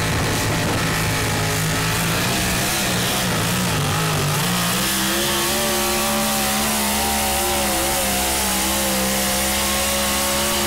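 Pulling pickup truck's engine running flat out as it drags a weight-transfer sled. The engine pitch climbs about halfway through, then holds steady at high revs.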